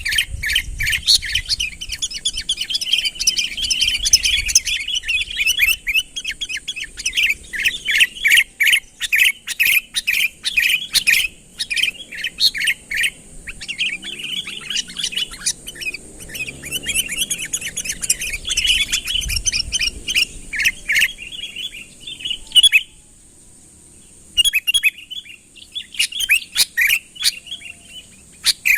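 Sooty-headed bulbul (kutilang) calling vigorously: a dense, rapid run of short, bright chirps that breaks off for about a second and a half near the end, then starts again.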